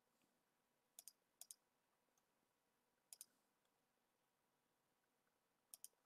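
Computer mouse clicking four times against near silence, each click a quick pair of ticks.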